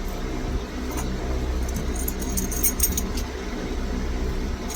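Small metal lock pins and tools clinking lightly while pins are handled at a Kwikset lock plug, with a cluster of quick light ticks about two to three seconds in. A steady low hum runs underneath.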